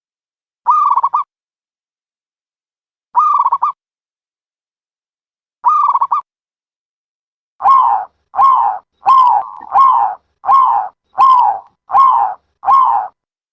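A dove calling as recorded lure audio. Three short trilled coos come about two and a half seconds apart, then a quicker run of eight longer, louder coos, less than a second apart, starts about halfway through.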